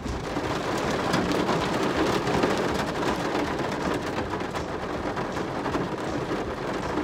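Heavy rain pelting on a car, heard from inside: a dense, steady patter of drops on the roof and windscreen.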